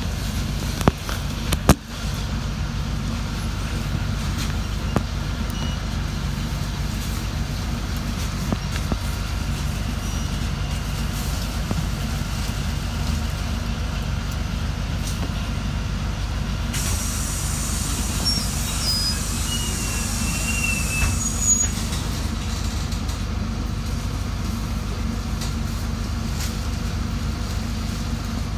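City bus's diesel engine idling steadily at a standstill, heard from inside the bus, with a few sharp clicks in the first couple of seconds and faint high squeaks around two-thirds through.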